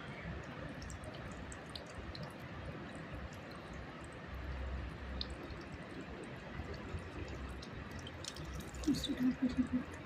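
Water dripping and trickling in small scattered drops as a small deity idol is bathed, with a short run of quick low pulses about nine seconds in.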